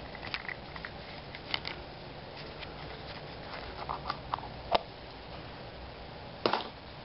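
Plastic surprise egg and clear toy capsule being handled and opened: scattered light plastic clicks and taps, the sharpest two a little under five seconds in and near the end.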